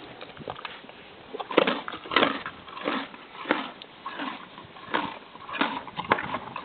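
Wild mare chewing a carrot: a run of crunching chews, about three every two seconds, starting about a second and a half in.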